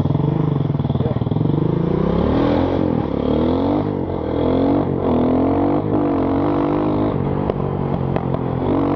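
Dirt bike engine accelerating away, revving up through the gears. Its pitch climbs and drops back at each shift, several times in quick succession.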